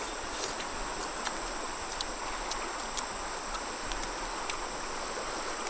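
Steady outdoor background hiss with a thin, steady high-pitched whine and scattered light clicks.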